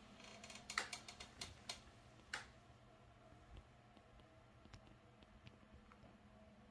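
Near silence: faint room tone with a handful of soft clicks and taps in the first two and a half seconds, then only a few faint ticks.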